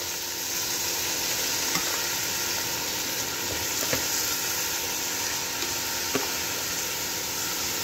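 Uncooked rice frying in hot oil with onion and spice masala in a cooking pot, a steady sizzle as it is stirred, with a few light knocks about two, four and six seconds in. The rice is being toasted in the masala before water goes in, the frying stage of bagara rice.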